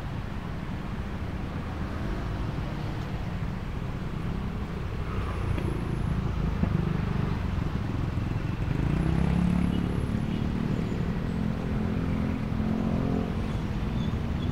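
Steady low rumble of road traffic and the car's own engine, heard from inside a car creeping in slow traffic. In the second half an engine grows louder and more pitched, matching a motorcycle filtering close alongside.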